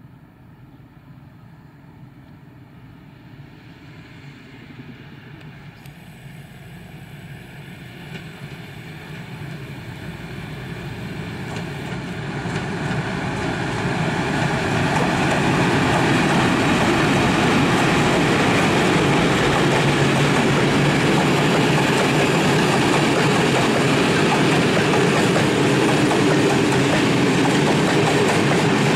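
Freight train hauled by a pair of EU07 electric locomotives approaching, growing steadily louder over about fifteen seconds. Then a long string of open bulk wagons rolls past with a steady, even rumble of wheels on rail.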